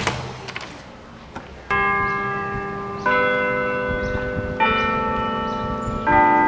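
Clock-tower bells chiming the hour: after a few faint clicks, four bell strokes about a second and a half apart, each on a different note and ringing on as the next one sounds.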